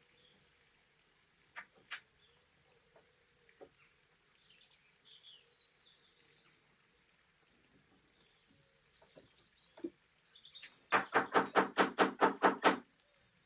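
Small mallet tapping a freshly glued wooden joint home: a run of about a dozen quick taps, roughly seven a second, near the end. Before that, faint bird chirps and a few light handling clicks.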